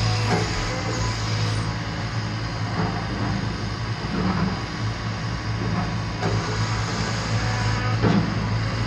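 Cat 320 Next Gen excavator running steadily with a constant low engine hum, with a few short clunks from the machine.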